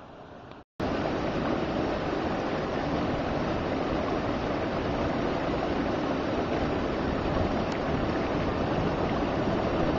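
Water pouring over a stone weir spillway into the pool below, heard close up: a loud, steady rush that cuts in suddenly just under a second in.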